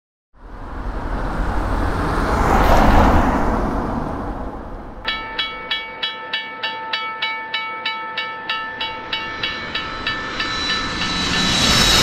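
A rushing rumble swells and fades over the first few seconds. About five seconds in, a railroad crossing bell starts ringing, about two strikes a second, while the gate arm comes down. Near the end a louder rumble builds as a train approaches.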